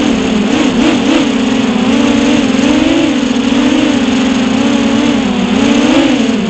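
Electric motors and propellers of a 6-inch FPV quadcopter whining. The pitch wavers up and down constantly as the throttle changes, over a steady rush of air across the onboard camera.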